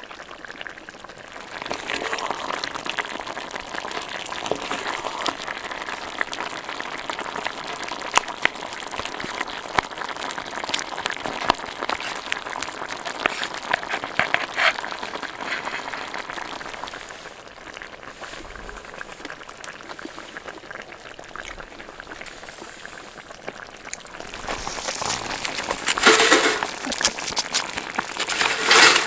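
A pot of food bubbling at a steady simmer, with a dense crackle of small pops. Two louder bursts of noise come near the end.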